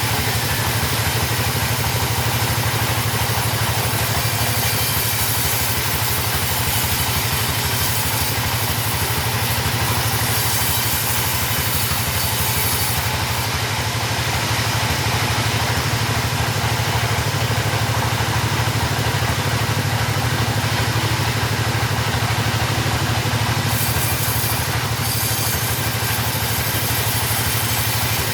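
Two-stroke chainsaw engine running steadily at a constant speed, with no rise or fall in pitch.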